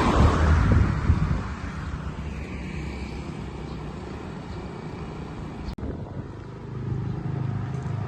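Road traffic passing close by: a vehicle goes past loudly at the start and fades away over the first couple of seconds, with wind buffeting the microphone. Traffic noise builds again near the end.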